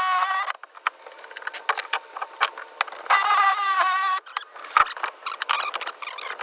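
Jigsaw cutting through the boat's deck in short bursts: its high motor whine stops about half a second in and runs again for about a second in the middle, with irregular clicks and rattles between the cuts.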